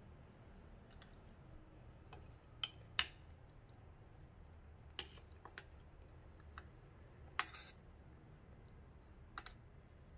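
A metal spoon clinking and scraping against a stainless steel pot while scooping food, as a series of irregular light clicks with the loudest about three seconds in.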